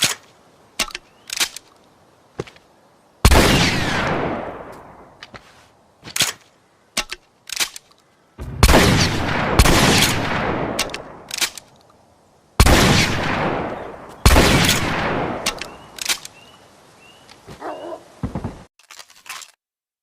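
Double-barrel shotgun fired five times: a single shot, then two pairs of shots, each blast with a long echoing decay. Short sharp mechanical clicks of the gun being handled come before and between the shots, with a brief rattle near the end.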